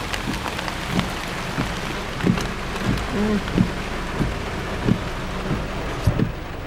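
Heavy rain pouring steadily, with irregular taps of drops striking close by.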